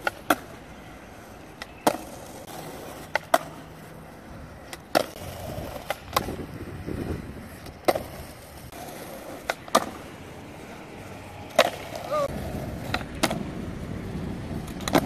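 Skateboard flatground tricks on rough concrete: sharp tail pops and board landings clacking every second or two, with the wheels rolling and rumbling over the pebbled surface in between.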